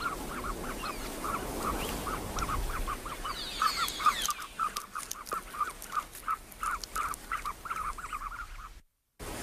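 Newly hatched ostrich chick calling in a steady run of short peeps, about four a second, with light crackling of eggshell being broken away. The sound cuts out briefly near the end.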